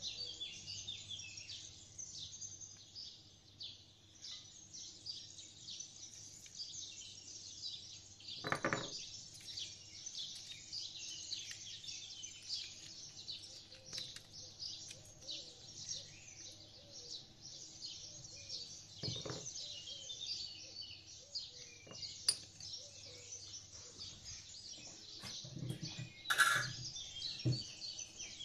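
Many small birds chirping and twittering without pause, with a few short knocks of handling at the bowl, the loudest near the end.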